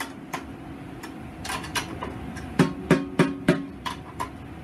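Snare drum head tapped with a fingertip near the rim during tuning, each tap a short pitched ring: a faint one near the start, two about a second and a half in, then a run of four at about three a second and two more toward the end. The resonant head is being tuned a major third above the batter head, to F# against D.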